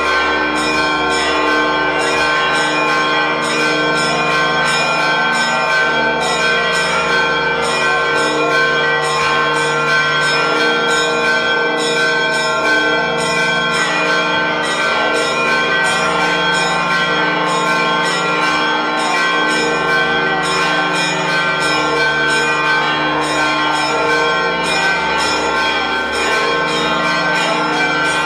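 Several church bells ringing in a continuous peal, struck in quick, even succession with their tones overlapping without a break.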